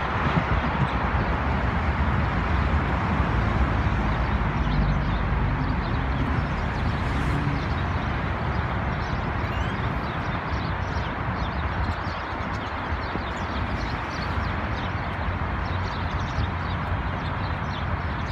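Steady traffic noise from a busy multi-lane city road, a low rumble under an even hiss, with many short faint high ticks from about halfway through.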